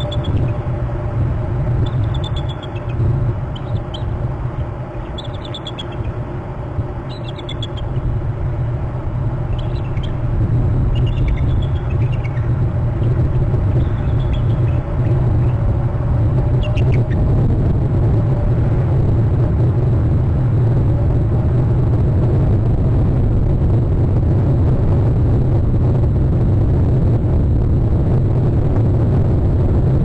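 Bald eagles giving alert calls: a scattered series of short, high, downward-sliding chirps over the first seventeen seconds or so, then stopping. A steady low rumble runs underneath throughout and is louder than the calls.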